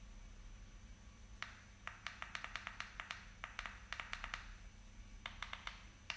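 Irregular runs of sharp clicks, several a second, in two groups: a longer run starting about a second and a half in, and a shorter one near the end.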